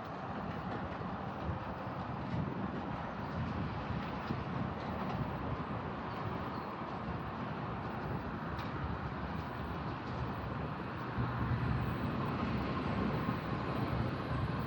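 Rumble of an approaching train, steady and growing louder over the last few seconds.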